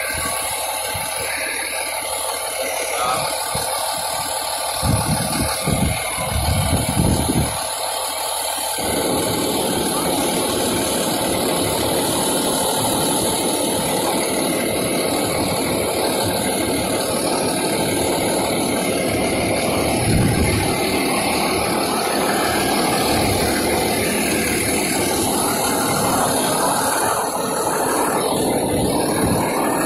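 Fire engine's diesel engine idling, a steady mechanical drone. A few short surges of deeper rumble come about five to seven seconds in, and a steady deeper rumble joins from about nine seconds on.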